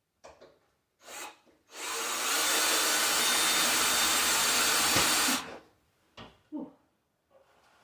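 A power drill running steadily for about three and a half seconds, driving a screw to fix a drywall panel to the ceiling, with a few short knocks before and after.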